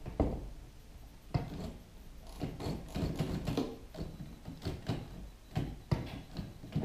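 The stripped metal mechanism of an Olivetti Lettera 22 portable typewriter being handled and shifted on a wooden table: irregular clunks, knocks and rattles, the sharpest near the start.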